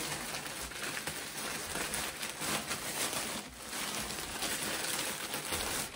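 Plastic poly mailer bag and the clear plastic wrapping inside it crinkling and rustling steadily as hands open and dig through the package.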